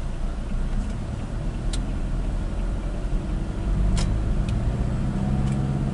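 Car driving on a wet road, heard from inside the cabin: a steady low rumble of engine and tyre noise that grows a little louder about four seconds in, with a few sharp ticks.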